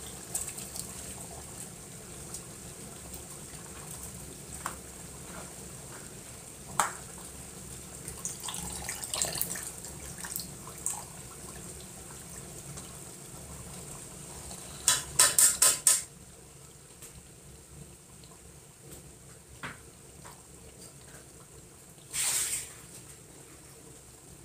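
A metal strainer and steel cooking pot clinking as washed rice is tipped into simmering broth, over a steady hiss, with scattered light clicks. About fifteen seconds in, a quick run of about five loud metal knocks, then the hiss quietens; a short scrape comes near the end.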